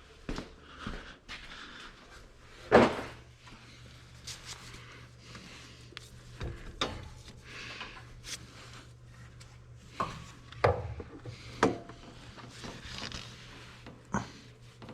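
Scattered knocks and clicks of parts and tools being handled, the loudest knock about three seconds in, over a steady low hum.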